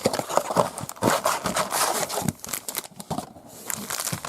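Crinkling and tearing of trading-card packaging as a 2019-20 Hoops basketball blaster box is opened and its packs handled: a dense crackle of rustles and small tears with short lulls.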